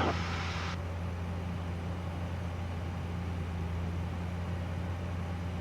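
Cockpit drone of a 1965 Cessna 172G's Continental O-300 six-cylinder engine and propeller at reduced power during the descent, a steady low hum. A higher hiss stops under a second in.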